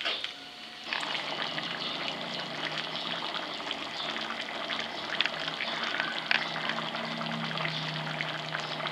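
A watery potato and bamboo-shoot curry simmering in a wok: a dense, steady crackle of small bubbles popping and sizzling, with a low steady hum underneath. A spatula knocks the pan once at the very start.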